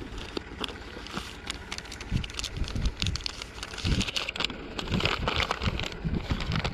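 Wind rumbling on the microphone of a moving motorcycle, with road noise and scattered crackles and knocks throughout.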